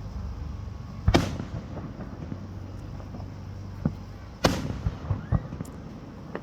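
Aerial fireworks going off: two loud booms, about a second in and at about four and a half seconds, each followed by a rumbling echo, with smaller pops in between.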